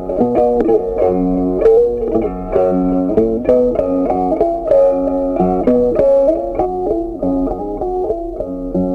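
Background music: a plucked guitar melody with a steady run of short notes.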